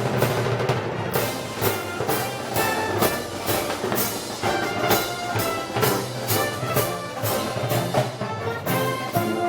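Brass band music: trumpets and trombones playing over a steady drum beat of about two strokes a second.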